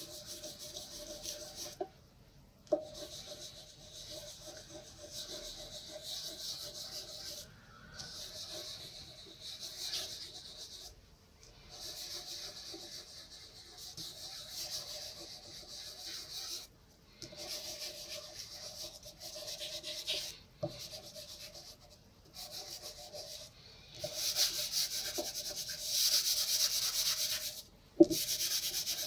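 Fingers and palms rubbing soft pastel into the painting surface, blending the blue background in a series of scraping strokes with short pauses between them. A couple of sharp knocks cut in, the loudest near the end.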